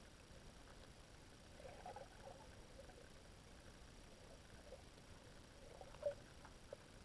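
Underwater near silence with faint clicking and crackling in two short clusters, about two seconds in and about six seconds in; the second cluster ends in a sharp click.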